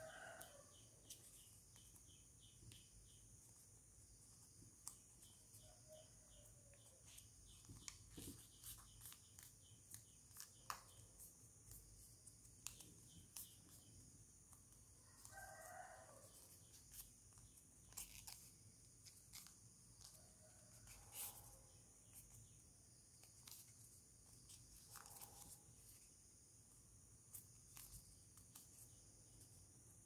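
Near silence: faint crinkles and taps of origami paper being creased by hand, with several faint bird calls in the background.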